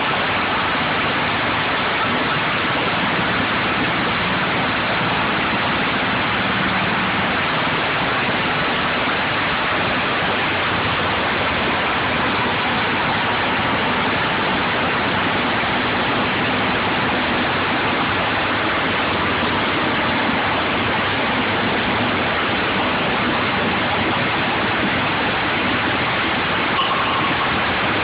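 Diesel-engine-driven screw briquette press running while it extrudes a hot, smoking sawdust briquette. It makes a loud, steady, even mechanical noise that does not change.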